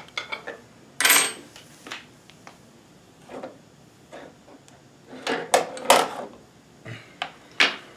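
Clicks and knocks of a sewing machine walking foot attachment and its metal parts being handled and fitted onto the machine. There are a few separate sharp knocks: one about a second in, several close together around five to six seconds, and one near the end.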